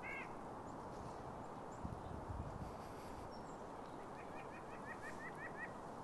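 White-breasted nuthatch calling: one short nasal note right at the start, then about four seconds in a quick run of about nine nasal notes, roughly six a second, over steady wind noise with a couple of low thumps about two seconds in.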